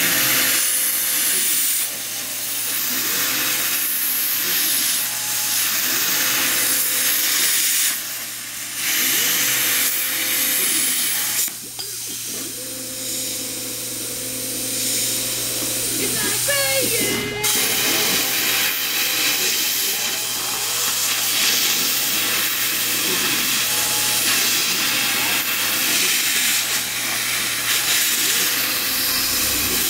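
Plasma torch on a tube processor cutting square steel tube: a loud steady hiss of the cutting arc, which drops out briefly twice, over a steady low machine hum.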